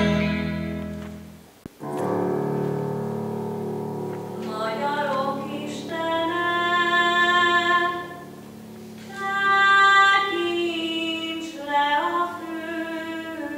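One piece of music fades out, a click follows, and about two seconds in a new piece starts with held instrumental notes. From about four seconds in, a woman sings in a classical style with vibrato over the accompaniment.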